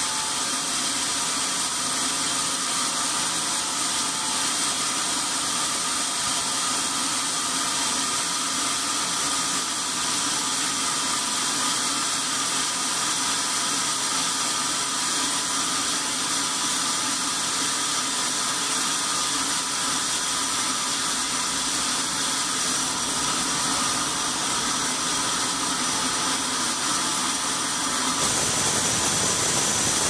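Sawmill machinery running steadily: a constant hiss with a steady hum. Near the end the sound gets slightly louder and deeper.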